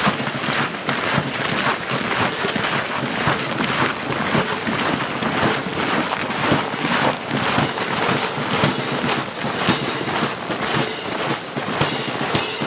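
Many pairs of military boots crunching on packed snow as a column of soldiers marches past: a dense, loud stream of overlapping footsteps.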